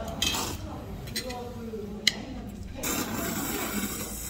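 Someone slurping spicy mixed noodles eaten with chopsticks, a wet sucking noise that sets in past the middle and keeps going. A single sharp click comes about two seconds in, and voices talk in the background earlier on.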